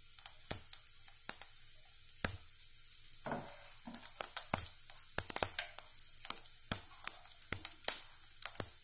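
Whole spices (bay leaf, cinnamon stick and seeds) sizzling in hot oil in a kadhai, with a steady hiss and frequent irregular sharp pops and crackles.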